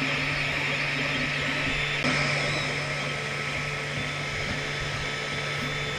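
XVICO X3S 3D printer running mid-print: a steady whir of cooling fans and stepper motors over a constant low hum, which shifts slightly about two seconds in.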